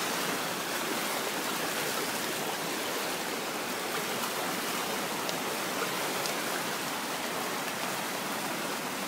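Rushing whitewater of a small river rapid: a steady, even rush of water.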